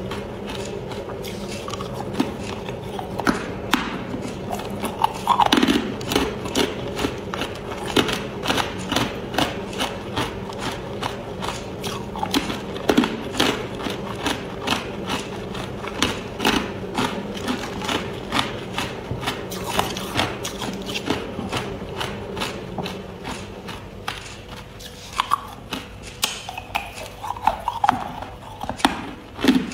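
Hard clear ice cubes being chewed and crushed between the teeth: a steady run of sharp crunches, about two or three a second, with a few louder cracks.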